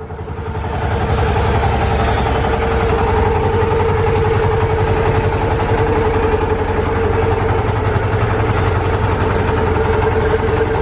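Boat engine running steadily: a low rumble with a wavering mid-pitched drone, rising in level over the first second, then holding even.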